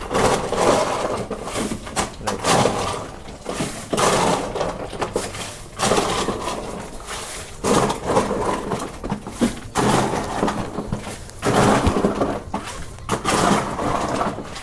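Ice cubes being scooped and bagged: repeated crunching, clattering scoops every second or two, with sharp clicks among them.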